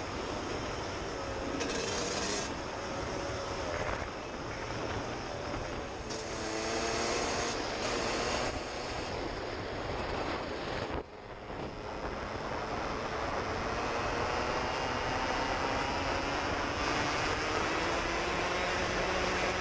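Suzuki RM125's two-stroke single-cylinder engine pulling hard under way, its pitch climbing again and again as it revs out through the gears, with wind noise over the helmet microphone. About halfway through the sound drops out briefly, then the engine pitch rises in one long climb.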